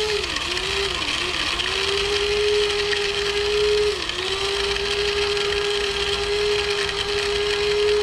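Electric blade spice grinder running, grinding toasted cashews and water into a paste. Its motor whines steadily and dips briefly in pitch a few times: just after the start, about a second in, and around four seconds in.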